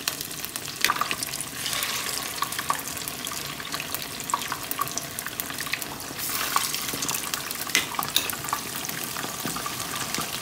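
Battered fish pakora pieces deep-frying in very hot oil in a wok: a steady sizzle full of small crackling pops, while a spoon turns the pieces in the oil.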